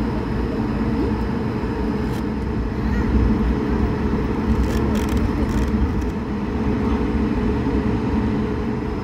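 Cabin noise of an Airbus A220-300 taxiing: its Pratt & Whitney PW1500G geared turbofans running at taxi power with a steady low hum over a constant drone, and a few faint clicks around the middle.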